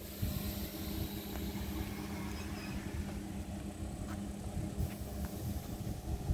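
Stationary ЭД4М electric multiple unit humming steadily from its onboard equipment, over a low uneven rumble, with a few faint clicks.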